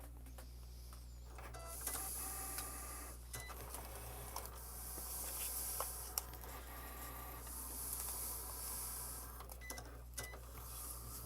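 Cricut cutting machine cutting cardstock: its carriage and roller motors whir in stretches, with short pauses and small clicks between the moves.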